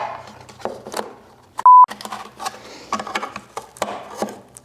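A short, loud electronic beep at one steady pitch about a second and a half in. Around it are irregular clicks and scraping as hands work a small wooden box with a hand tool.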